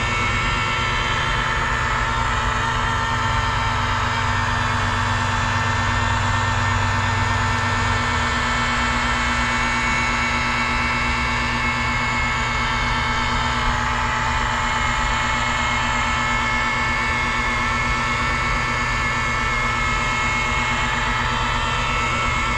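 Makita rotary polisher running steadily with a steady whine, its foam pad buffing polish into a yacht hull.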